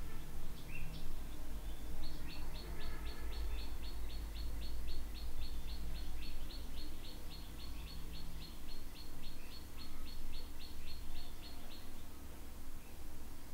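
A bird chirping a rapid, even run of short high notes, about four a second, lasting around ten seconds, with a few separate chirps before it, over a steady low hum.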